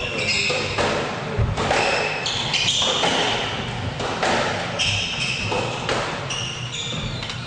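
A squash rally: the ball is struck by rackets and cracks off the court walls with sharp thuds about once a second, echoing in the court, while the players' shoes squeak briefly on the wooden floor.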